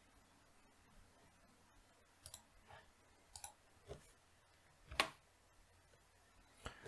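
Faint, scattered clicks of a computer keyboard and mouse, about seven in all, the loudest about five seconds in, as a command is entered and run in a terminal.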